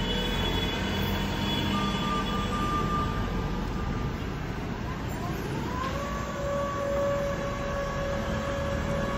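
Raymond swing-mast turret truck's electric motors running with steady whines over a low hum; about five and a half seconds in, a whine rises in pitch and then holds at the higher note as the mast and forks swing round.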